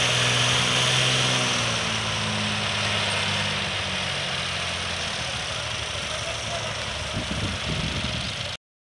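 Diesel farm tractor engines running steadily under load, hauling an overloaded sugarcane trolley: a low drone that slowly fades as they move off, then cuts off abruptly near the end.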